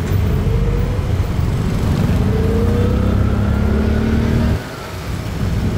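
Engine of the vehicle being ridden in, running loud and rising slowly in pitch as it pulls along, then dropping off sharply about four and a half seconds in, with road noise beneath.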